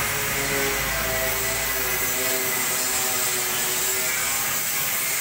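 A power tool running steadily with a high hiss, its hum shifting a little in pitch.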